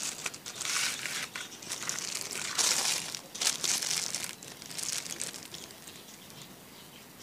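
Plastic wrapping crinkling and rustling as a wrapped air rifle barrel is handled, in irregular bursts that are loudest around three to four seconds in and die down near the end.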